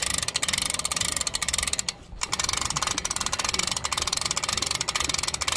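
Tohatsu 25 hp outboard motor running, with a dense, rapid mechanical rattle that briefly drops out about two seconds in.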